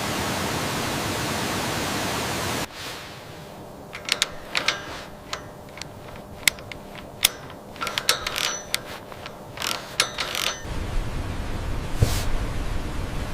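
Steady rushing of a waterfall that cuts off abruptly about two and a half seconds in, giving way to a quieter stretch of irregular sharp clicks and light knocks; near the end the rushing water returns, with one more sharp click.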